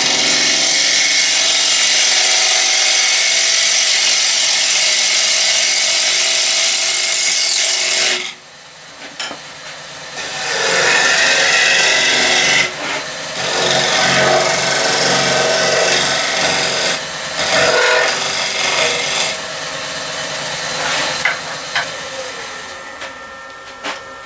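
Bowl gouge cutting a rough-turned wooden bowl blank spinning on a wood lathe, truing the tenon and shaping the outside. It gives a loud, continuous shaving hiss. The cut breaks off about eight seconds in, comes back as several shorter cuts, and near the end the lathe spins down with a falling tone.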